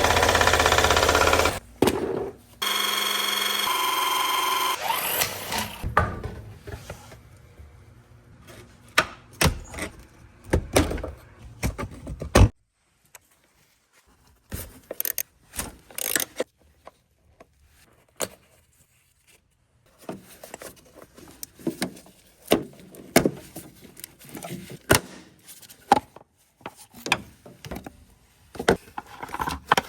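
Hand tools knocking, clicking and scraping on metal in irregular strikes, with a short pause about halfway through. A loud steady sound with pitched tones comes first, for about five seconds.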